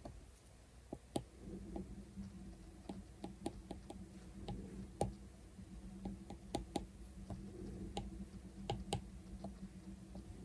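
Apple Pencil tip tapping and clicking on the iPad's glass screen in irregular light taps, a few each second, with a faint steady low hum underneath.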